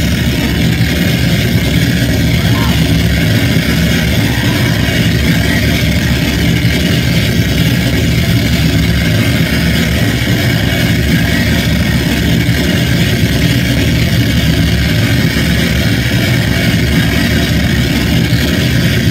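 Harsh noise music played loud through a club PA: a steady, unbroken wall of distorted noise with a heavy low rumble and a hissing top.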